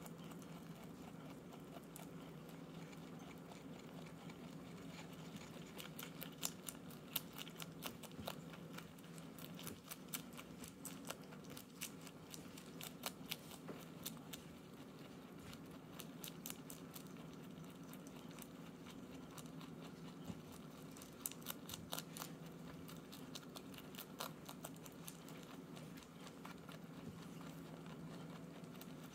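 Flemish giant rabbit chewing kale leaves: many rapid, crisp crunching clicks from its teeth, over a faint steady low hum.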